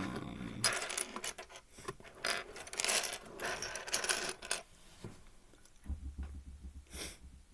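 Loose plastic Rubik's cube pieces clattering and clicking against each other as they are rummaged through, with a last sharp click near the end.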